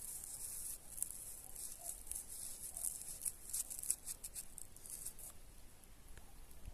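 Dry, high-pitched rustling and crackling made of many quick small ticks, fading out about five seconds in.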